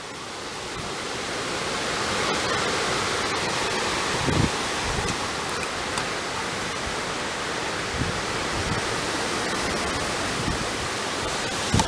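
A steady rushing noise that swells up over the first second or two and then holds, with a few faint low knocks.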